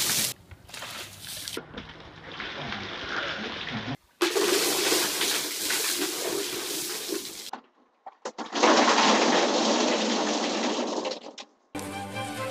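Buckets of ice water dumped over people in a run of short clips: splashing and gushing water, cut off abruptly several times as one clip gives way to the next. Music comes in near the end.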